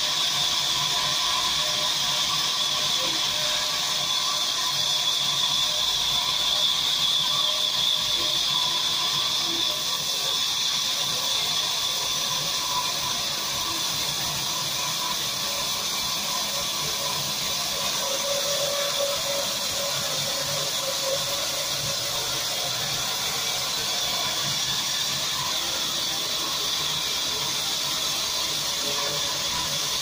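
A large vertical band saw ripping a wooden log lengthwise: a steady high whine over a hiss.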